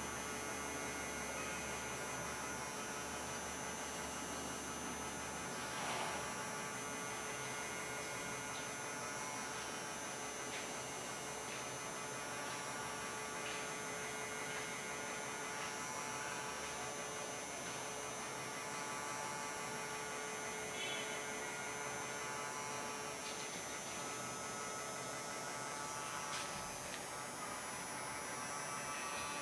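Small 12 V brushed DC gear motor with a worm gearbox running at low speed, giving a steady hum as it slowly swings its crank and linkage, with a couple of faint ticks.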